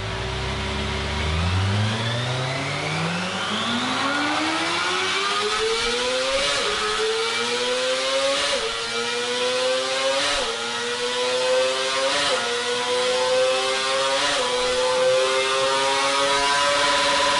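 Kawasaki Ninja ZX-25R's 249 cc inline-four running flat out on a chassis dynamometer: it revs up steeply from low revs, then climbs through the gears, dipping briefly in pitch at five upshifts, and holds a high-pitched scream near the end.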